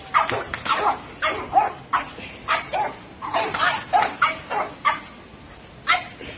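Small dogs barking over and over, two or three short barks a second, breaking off about five seconds in, with one more bark near the end.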